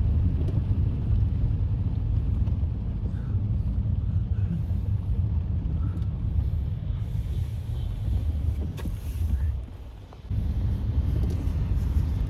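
Steady low rumble of road and tyre noise inside a moving taxi on wet roads, briefly dropping away about ten seconds in.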